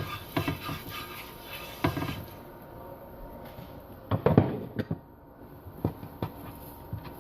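Utensil scraping and knocking on a hot tava as butter is spread over it, with a cluster of louder knocks a little after four seconds and a few single taps after.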